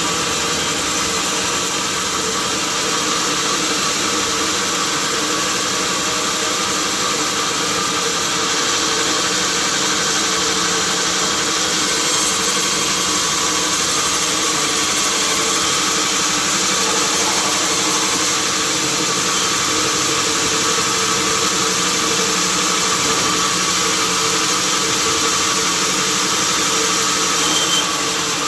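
Sawmill machinery running steadily: a constant motor hum with a wide hiss over it.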